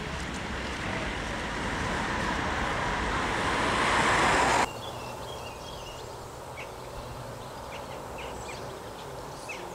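A rushing noise swells steadily louder for about four and a half seconds and then cuts off abruptly, like a rising whoosh effect ending on a cut. After it comes a quiet outdoor background with scattered faint bird chirps.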